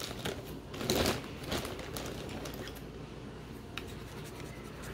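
Plastic zip-top bag of crayons rustling, with crayons clicking against each other as a hand rummages through it for another crayon: scattered light clicks and a couple of short crinkles.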